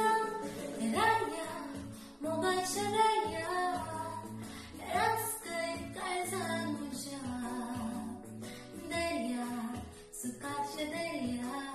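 A woman singing a song solo, with instrumental accompaniment under her voice.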